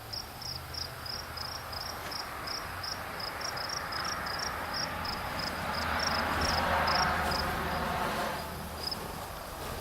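A cricket chirping steadily, about three short high chirps a second, thinning out near the end. A rushing noise swells and fades in the middle, over a low steady hum.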